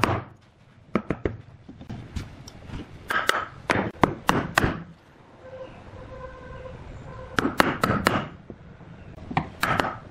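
Wood chisel cutting a carved design into a solid wooden tabletop: irregular sharp knocks and short scraping cuts, several coming in quick clusters.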